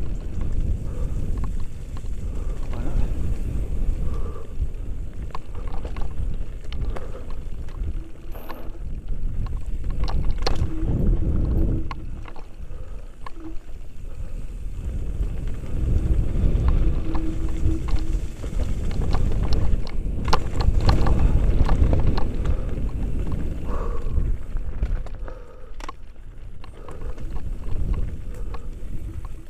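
Mountain bike descending a rocky dirt trail, heard through a helmet-mounted action camera: tyres rolling over dirt and stones, with the bike rattling and knocking over bumps, under a rumble of wind on the microphone that swells and eases with speed.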